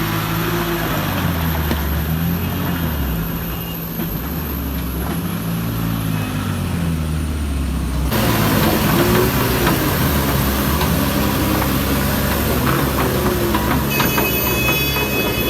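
Heavy truck's diesel engine running under load, its pitch rising and falling again and again as the throttle is worked. The sound changes abruptly about halfway through.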